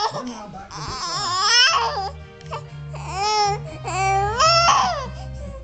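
A young baby fussing and crying in several short wails, each rising and falling in pitch. From about two seconds in, a low steady hum runs underneath.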